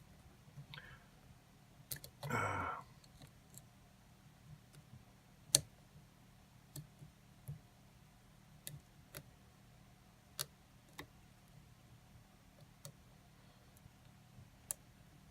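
Scattered faint clicks at irregular intervals from a lock pick and tension wrench working the pins of a Kwikset pin-tumbler lock, with one sharper click about five and a half seconds in.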